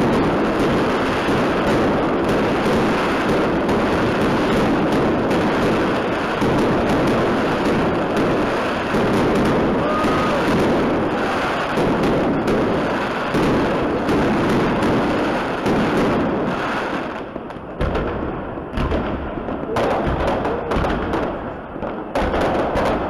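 Fireworks display overhead: a dense, continuous crackle of many bursts at once, thinning after about seventeen seconds into separate, heavier bangs with short gaps between them.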